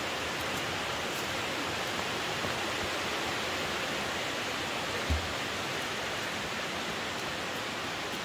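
Steady rushing of flowing creek water, an even hiss with no let-up. A single brief low thump about five seconds in.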